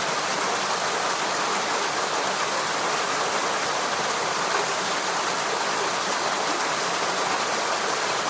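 Steady rushing of running water, an even, unbroken hiss with no changes.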